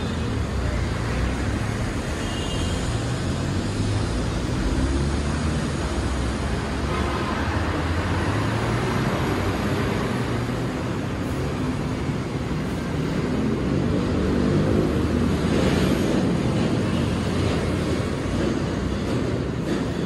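Heavy road traffic: trucks, cars and motorcycles passing with a steady drone of engines and tyres, loudest about three-quarters of the way through.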